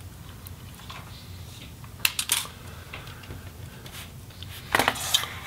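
A few light clicks and taps from laptop parts being handled: a small circuit board on its ribbon cable being set down and the plastic chassis being touched. There are a couple of clicks about two seconds in and a quick cluster near the end, with faint hiss between.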